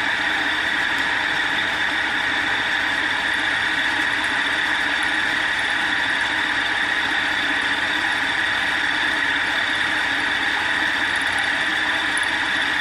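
Belt-driven milling machine running steadily with a fly cutter taking a facing pass across an aluminum block as the table feeds, a continuous hum with a steady high tone over it.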